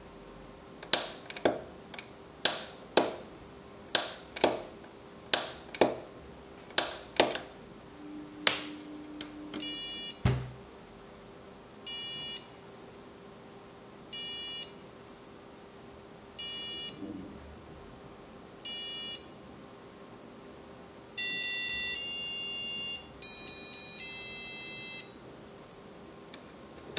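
A BBC micro:bit countdown timer sounding through its Snap Circuits buzzer: a run of sharp electronic ticks, roughly two a second, then short buzzy beeps about every two seconds, then a string of longer buzzy tones at changing pitches near the end as the countdown runs out.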